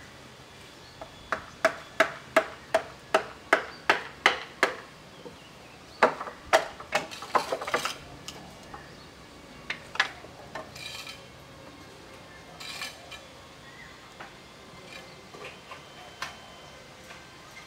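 Hammer blows on a chisel, carving a large block of wood: a run of about a dozen sharp strikes, roughly three a second, then a quicker cluster a little later and a few scattered strikes after.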